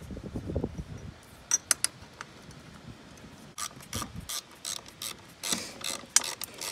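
Ratchet wrench clicking in short runs as T40 Torx bolts on a motorcycle exhaust bracket are driven in. Some dull knocks of the muffler being handled come in the first second.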